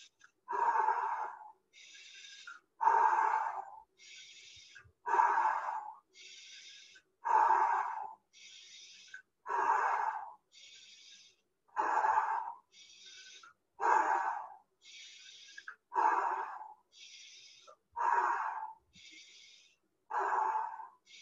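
A man breathing deeply in a steady cycle: about ten forceful exhalations pushed out through the mouth, roughly one every two seconds, each with a quieter, hissy in-breath between. It is a yogic breathing exercise of emptying the breath through the mouth.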